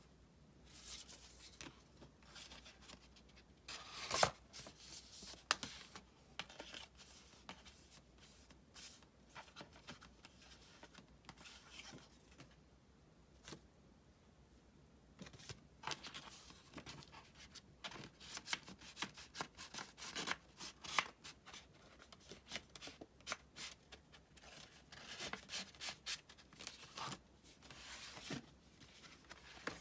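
Hands handling a K-pop album's paper and plastic contents: rustling, rubbing and light taps in short irregular bursts, with one sharper knock about four seconds in.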